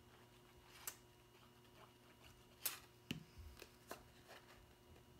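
Faint handling of cardstock: the paper rustling and clicking a few times as box tabs are glued, folded and pressed together, with one light knock a little past three seconds.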